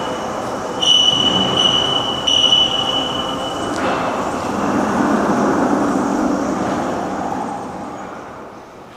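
Machinery running with a steady noise, joined about a second in by a high-pitched squeal that lasts about three seconds; the noise fades toward the end.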